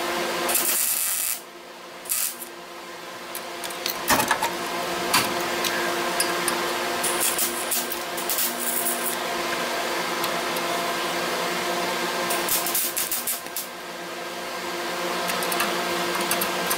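MIG welder tack-welding a steel patch panel into a car's rust-repaired lower A pillar: the arc gives a steady crackling buzz from about four seconds in.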